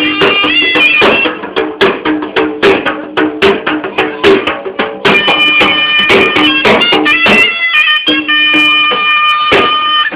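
Attan dance music: a surnai (a loud double-reed pipe) playing a wavering, held melody over rapid dhol drum beats.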